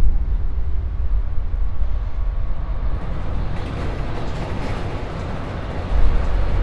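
A deep, steady rumble that starts abruptly, with a rushing, hissy roar swelling up about halfway through and easing off, then a second sudden surge of the rumble near the end.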